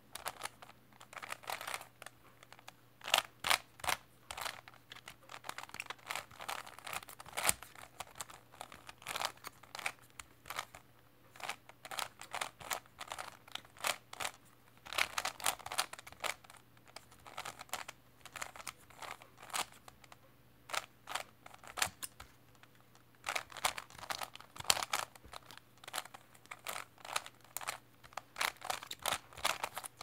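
A plastic 3x3 speed cube being turned by hand: quick flurries of clicking, clattering layer turns with short pauses between them.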